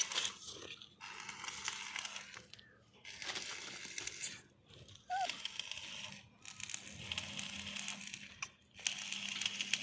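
Electric arc welding: the arc crackles and sizzles in runs of one to two seconds, broken by short pauses, over a steady low hum.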